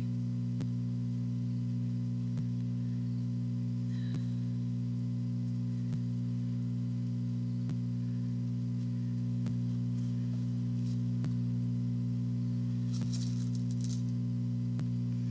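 Steady low electrical hum, with a few faint clicks and a brief rustle near the end.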